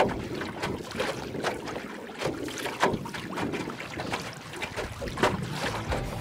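Single-bladed paddle dipping and splashing in open water as a small boat is paddled along, the strokes coming roughly once or twice a second over a steady wash of water and wind.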